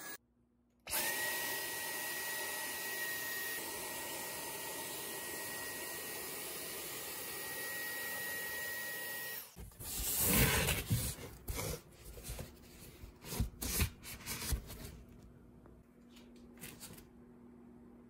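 Dyson V10 cordless stick vacuum running steadily with a high whine, starting about a second in and cutting off suddenly after about eight and a half seconds. Irregular knocks and rubbing follow as things are handled.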